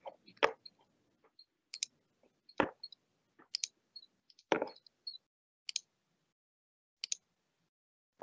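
Computer mouse and keyboard clicks: a dozen or so short, sharp clicks at irregular intervals while a presentation is being set up for screen sharing.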